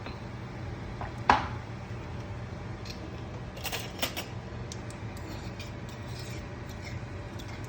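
Light kitchen clatter: scattered small clicks and taps, the sharpest about a second in and a cluster near the middle, over a steady low hum.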